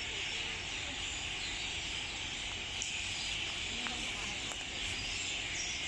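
A flock of swallows chirping together, a dense, steady high twittering, over a constant low rumble.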